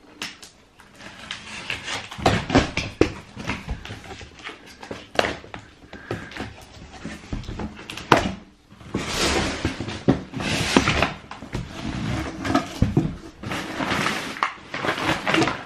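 Handling noise from cardboard shoe boxes and wrapping paper: scattered knocks and clicks, a sharp knock about eight seconds in, then stretches of paper rustling.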